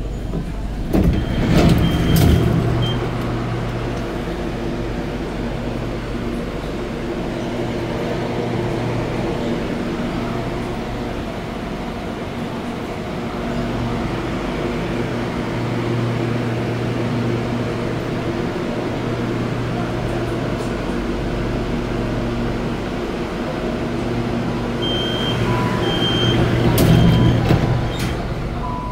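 Bombardier MOVIA 456 metro train standing at a station platform, its onboard equipment giving a steady hum of several low tones. Short high electronic beeps sound in two clusters: about two seconds in and again near the end.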